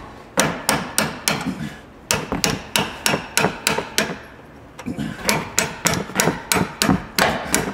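Steel hammer blows on a punch held against a seized front-suspension ball joint on a Chevy 1500, about three blows a second in three runs separated by short pauses. This is heat-and-beat work to drive the stuck ball joint out, and it is slowly making progress.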